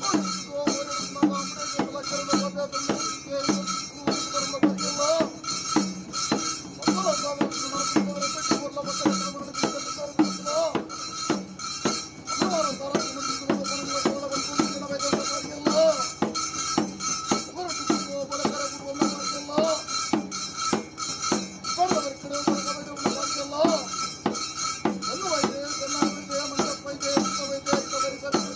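Bhoota kola ritual music: drums and cymbals keep a fast, steady beat of about three strokes a second, with a wavering melody line over it.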